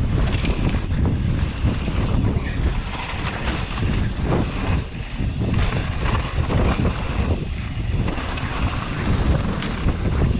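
Wind buffeting the camera microphone while a downhill mountain bike is ridden at speed, with a rough, continuous rattle and many small knocks from the bike and tyres over rough ground.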